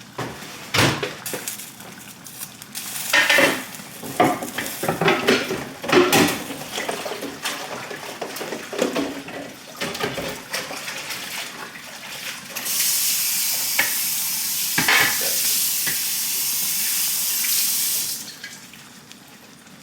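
Clinks and knocks of pots, a pot lid and utensils being handled, then a water tap running steadily for about five seconds, starting and stopping sharply about two-thirds of the way through.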